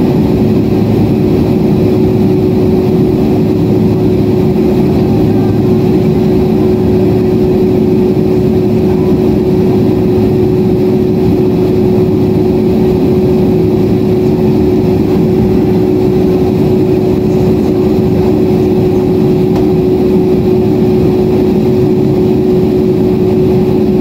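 Steady cabin noise inside a Boeing 767-400ER airliner in flight: a deep, constant rush of engine and airflow noise with a steady hum running through it.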